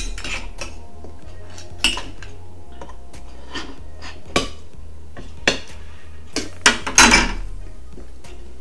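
Metal spoons and forks clinking and scraping against bowls and a glass serving bowl while food is served and eaten: a handful of separate sharp clinks, the loudest cluster about seven seconds in.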